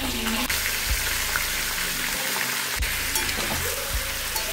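Pieces of fish sizzling in hot mustard oil in a metal kadhai as they are stirred with a spatula, a steady frying hiss with a few dull knocks of the spatula against the pan.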